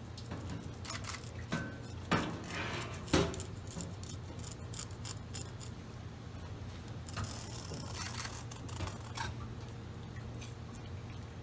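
Kitchen knife cutting and scraping along a live eel pinned to a plastic cutting board: a few sharp clicks and scrapes in the first three seconds, then a longer stretch of scraping later on, over a steady low hum.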